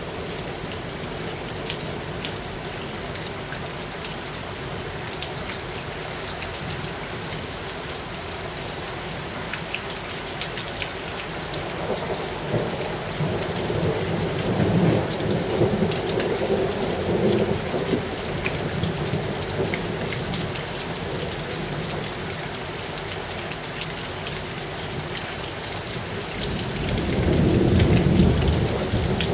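Steady heavy rain with thunder rumbling twice: a long rolling rumble starting about twelve seconds in, and a louder one in the last few seconds.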